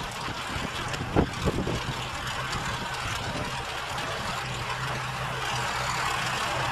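John Deere walk-behind snowblower's engine running steadily under load while it throws snow, with a short thump about a second in; the engine grows louder toward the end as the machine comes closer.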